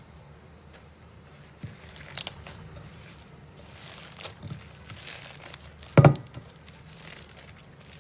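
Slime being pressed and stretched by hand, giving soft crinkling and crackling sounds with two sharp crackles, about two seconds in and, loudest, about six seconds in.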